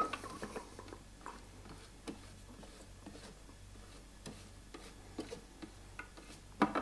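Spatula scraping and tapping inside a Thermomix TM6 mixing bowl while pushing chopped vegetables down: faint, scattered clicks and scrapes, with a louder knock near the end.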